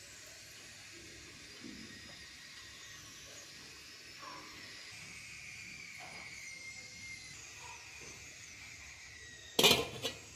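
Faint steady background hiss with a few faint high whistles, then, near the end, an aluminium cooking vessel clattering with several sharp metallic knocks as it is handled and set in place for steaming.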